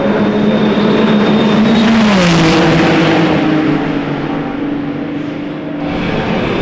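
Ferrari race cars, the 499P Modificata hypercar among them, running at speed on the track. The engine note holds steady, then drops in pitch about two seconds in with a rush of noise as a car goes past, and runs on at the lower pitch; the engine note changes again near the end.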